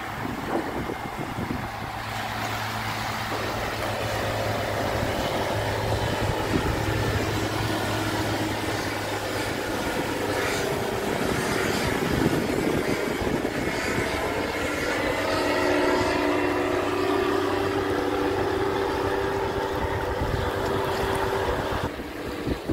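Engine and propeller of an ultralight flying-boat trike droning steadily as it flies past overhead, the pitch shifting as it passes and dropping a little near the end.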